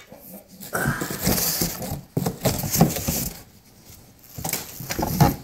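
Clear plastic wrap crinkling and rustling as hands dig through plastic-wrapped pressure washer parts in a cardboard box. The rustling comes in two bouts, a longer one and then a shorter one near the end.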